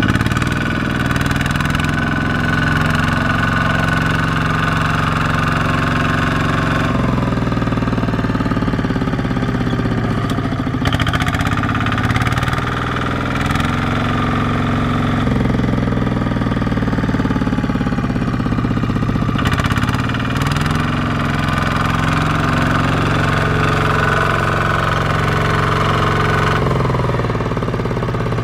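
Kubota ZT155 single-cylinder diesel engine of a two-wheel walking tractor running under load as it drives its mud-caked wheels through deep mud. The engine note shifts abruptly several times.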